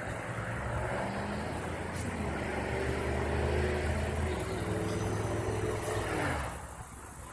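An engine running steadily, its pitch shifting slightly, then dying away about six and a half seconds in.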